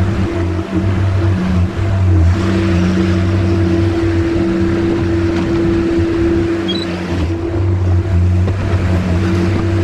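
Skid steer engine running steadily, its level rising for a stretch in the middle, from about two to about seven seconds in.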